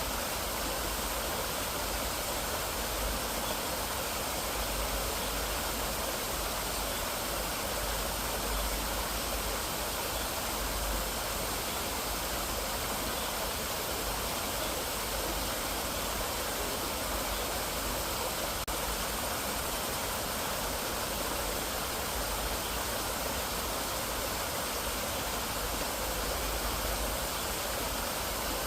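Mountain valley stream, water rushing and splashing over rocks in a steady, unbroken flow.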